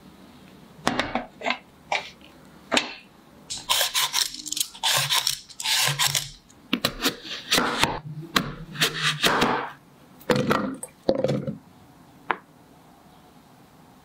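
A knife working raw taro on a wooden cutting board: several sharp knocks on the board, then runs of scraping and cutting strokes through the firm root, and a last single tap near the end.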